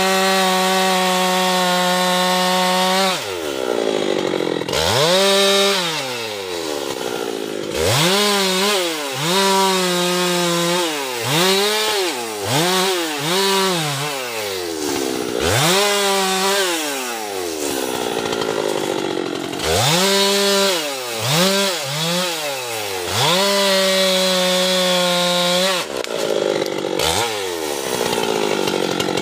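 Husqvarna two-stroke chainsaw cutting teak wood. Its engine is held at high revs, then sags and climbs back again and again, with quick rise-and-fall cycles in the middle as the chain loads up in the cut.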